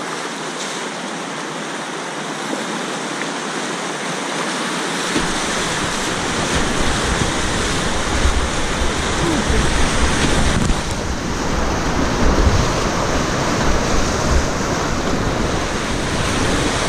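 Whitewater rapids rushing loudly and steadily around a kayak, heard close up from a camera on the boat. From about five seconds in, an uneven low buffeting rumble joins the rush as the kayak drops into rougher water.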